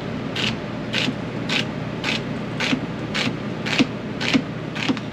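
Chef's knife chopping a celery stalk on a plastic cutting board: about nine even cuts, roughly two a second, each a crisp tap of the blade on the board, over a steady background hiss.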